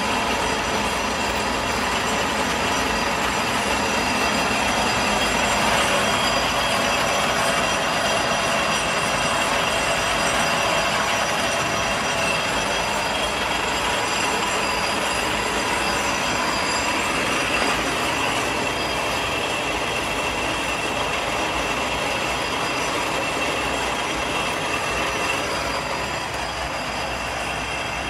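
1969 Davenport Model B 3/4-inch five-spindle automatic screw machine running: a steady mechanical din with several high, steady whining tones. It grows a little quieter near the end.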